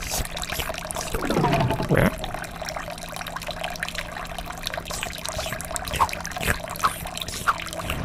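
Kitchen tap running a thin, steady trickle of water into the sink, with a falling swoop about a second and a half in and a few short clicks and splashes in the second half.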